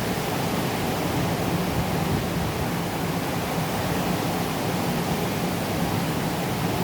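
Steady moderate rain falling, an even hiss of drops with no thunder.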